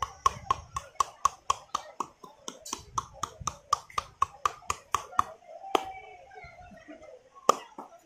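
Clasped hands drumming on a bare, oiled back in percussive massage: a quick, even run of hollow claps, about four a second, that stops about five seconds in, then two single slaps, the last one the loudest.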